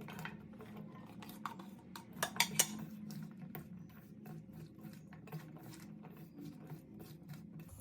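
Sliced potatoes being mixed into a spice paste in a vessel, with frequent light clinks and scrapes of a utensil against the vessel and a few louder knocks about two seconds in.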